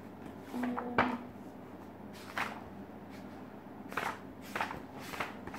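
Hardcover book being handled: a short hum and a sharp knock about a second in, then four brief rustles and scrapes of the cover and pages.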